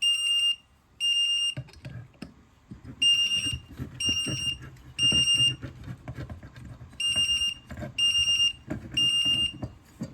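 Mircom fire alarm horn sounding in the temporal-3 evacuation pattern: three half-second blasts a second apart, then a pause, repeating. It has been set off by the pulled IBM 4252-1 Chevron pull station, showing the station works. Faint knocks and handling noise run under the blasts.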